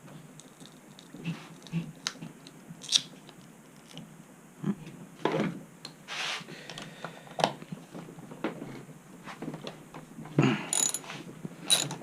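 Hand tools and small metal parts handled with scattered clicks and knocks, then a ratcheting tool clicking in quick strokes for the last second or so.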